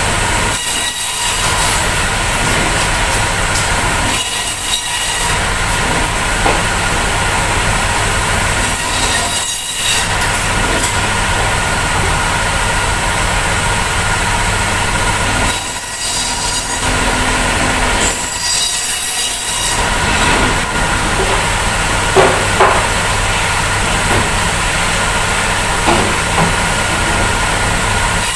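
Electric bone-cutting band saw running and cutting through frozen oxtail, a loud steady machine whine that dips briefly several times.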